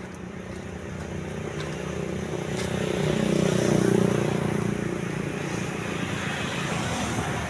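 A road vehicle passing close by: engine and tyre noise swell to a peak about four seconds in, then ease off.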